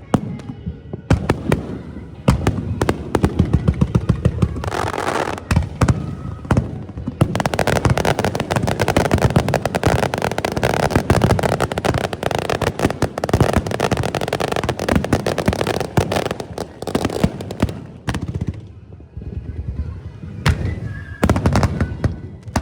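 Aerial fireworks display: a rapid run of bangs and crackling bursts, packing into a dense barrage for about ten seconds in the middle, then thinning out to scattered bangs near the end.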